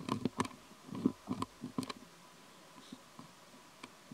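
Soft, irregular clicking and smacking, mostly in the first two seconds: a young long-tailed macaque mouthing and chewing something from its fingers.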